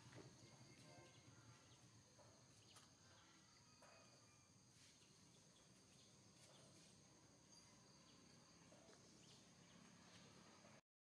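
Near silence with a faint, steady high-pitched chirring of insects and a few soft ticks; it cuts off suddenly near the end.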